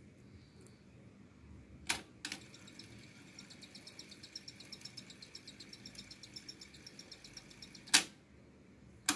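Sony TC-K77R cassette deck's transport keys clicking. The tape then winds at speed for about five seconds, with a rapid even ticking and a faint steady whine, and stops with a loud mechanical clunk about eight seconds in. Another key clicks near the end.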